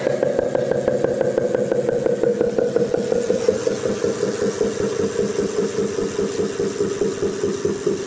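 Speaker driven directly by a bicycle-wheel AC generator, rare-earth magnets on the rim sweeping past a hand-wound coil, giving a loud, rapidly pulsing buzz. Each magnet passing makes one pulse, so the pitch follows the wheel's speed; it drifts slightly lower as the wheel turns a little slower.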